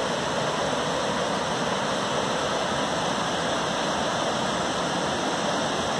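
Rocky creek running high after days of rain, its rapids rushing over boulders in a steady, even rush of water.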